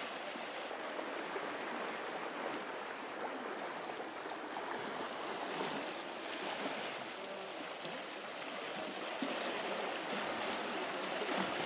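Treated sewage effluent pouring out of a sewage-works outfall and churning into the tidal Thames: a steady rush of turbulent water.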